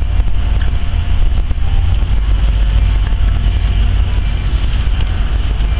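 Norfolk Southern diesel-electric freight locomotive approaching at low speed, its engine running with a deep, steady rumble.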